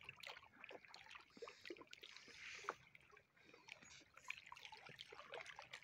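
Near silence: faint trickling water at the shore, with scattered small clicks.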